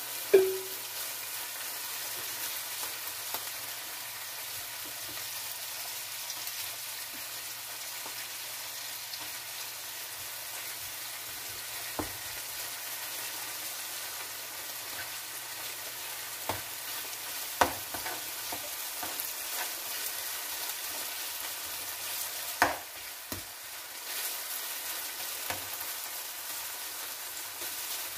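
Sliced beef sizzling as it stir-fries in a nonstick skillet with onions and peppers, a steady hiss. A loud knock right at the start as the meat is scraped out of its bowl into the pan, then a spatula clicking and knocking against the pan now and then as it is stirred.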